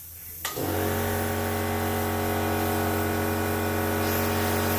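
Small airbrush air compressor clicking on about half a second in and running with a steady low hum, over the hiss of air from the airbrush.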